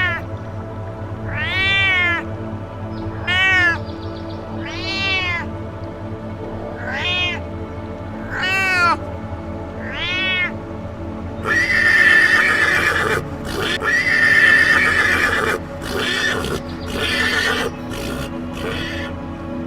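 An animal calling over background music: about seven separate calls, each rising then falling in pitch, spaced about a second and a half apart, then a run of louder, rougher calls.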